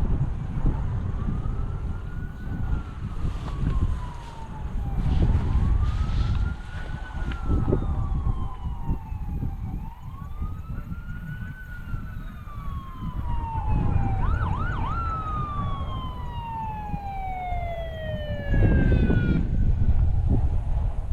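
Emergency vehicle siren wailing, rising and falling in slow cycles about every four and a half seconds, with a few quick yelps around two-thirds of the way through and a second, higher-pitched siren sweeping down near the end. A low rumble runs underneath.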